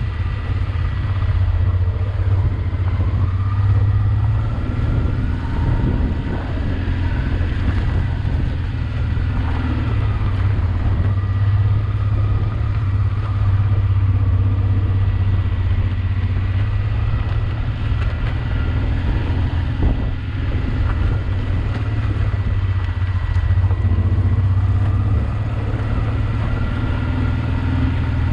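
Honda Transalp XL 600V's V-twin engine running at steady, moderate revs while riding, its pitch rising and falling a little with the throttle.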